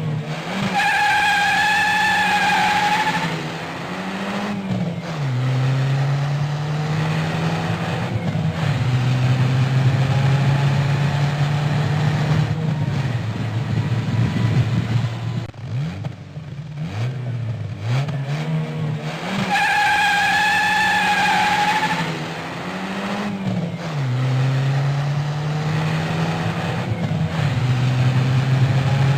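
Car engine running with a wavering high-pitched tyre squeal at the start, then revving up and dropping back in pitch several times. The whole sequence repeats about 19 seconds in, as a looped sound effect.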